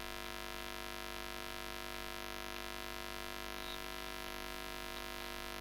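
Steady electrical mains hum, a buzz made of many steady tones stacked together, unchanging throughout.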